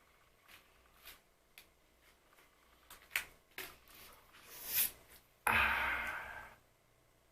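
Close-miked eating and handling sounds of glazed puff-pastry snacks: scattered small clicks and rustles, then a louder crunchy noise lasting about a second, about two-thirds of the way in.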